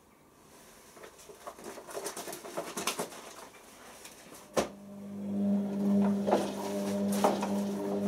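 Beko WM6103 washing machine in its wash phase: a soft irregular patter from the drum, a sharp click about four and a half seconds in, then the drum motor starts turning with a steady hum while the wet load splashes and thuds in the drum.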